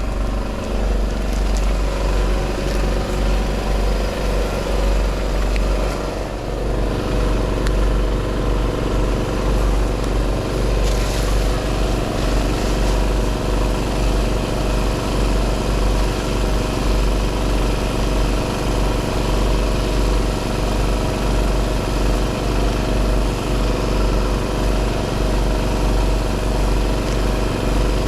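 An engine running steadily at an even speed, a constant low hum with a buzzing stack of tones.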